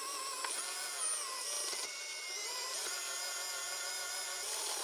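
Capo Cub 1/18-scale all-metal RC crawler's electric motor and metal two-speed transmission running quietly, a thin gear whine that rises and falls in pitch as the throttle changes.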